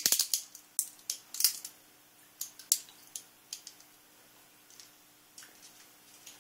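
Umbrella cockatoo's beak crunching and clicking: a quick run of sharp cracks over the first three and a half seconds, then a few scattered ones.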